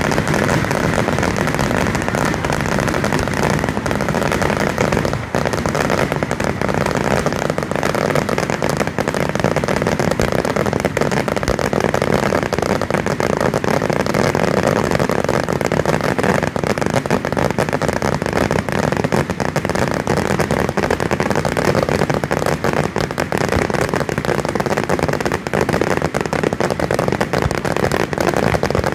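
A dense fireworks barrage: many shells burst in quick succession, and their reports and crackling run together into one steady, loud wash of sound with no pause.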